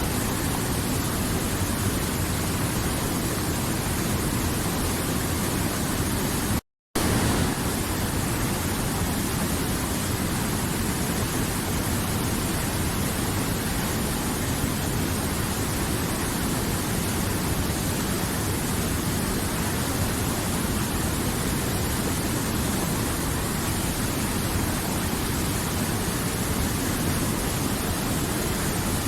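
River water flowing, a steady rushing sound, broken once by a split-second gap of silence about seven seconds in.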